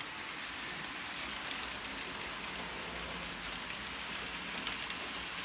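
Model trains running on the layout's track: a steady rattling hiss of small metal wheels on the rails, with a few faint clicks.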